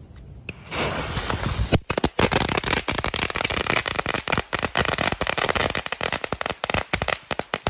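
Six belts of small machine-gun firecrackers, lit together through a heap of gunpowder, going off in a dense run of rapid, overlapping cracks. Under a second in, the powder flares with a loud hiss. The crackling starts about a second later and thins out near the end.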